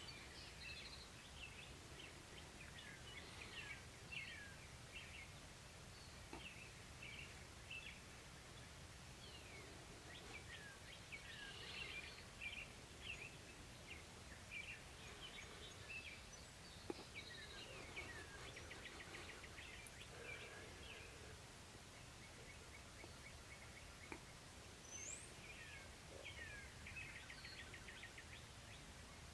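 Faint birdsong: many small birds giving short chirps, sweeping notes and quick trills, over a low steady rumble of outdoor background noise, with a couple of small clicks.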